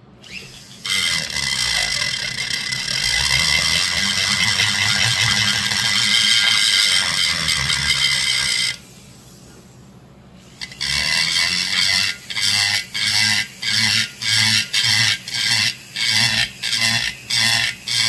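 A rotary tool spinning a carbide burr, cutting and trenching into a chainsaw crankcase with a high whine. It runs steadily for several seconds, stops briefly, then comes back as short bursts about twice a second as the burr is worked in and out of the metal.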